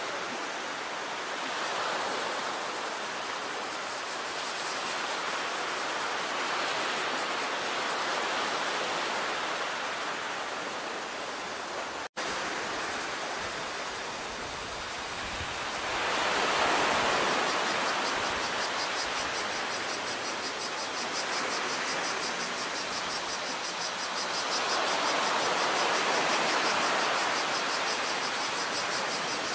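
Sea surf washing against a concrete tetrapod breakwater: a steady rush that swells and eases every several seconds, loudest about two-thirds of the way through. About halfway in, a fast, high pulsing chirr joins it, and the sound drops out for an instant just before that.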